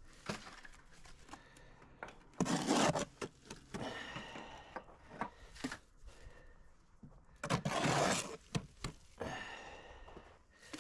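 A hoe scraping and working wet mortar in a wheelbarrow. Two louder scrapes come about two and a half and seven and a half seconds in, with scattered knocks between them.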